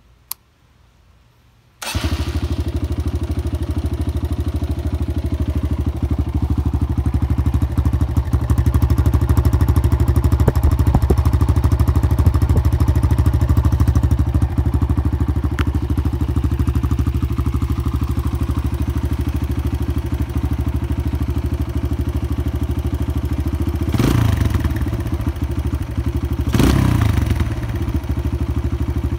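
2018 Kawasaki KLX140L's air-cooled single-cylinder four-stroke engine on a cold start: a click from the starter button, then the engine catches abruptly about two seconds in and settles into a steady idle. Near the end it swells briefly twice, like short throttle blips.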